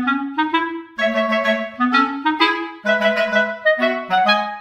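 Background music: a lively melody played in quick, separate notes on a wind instrument.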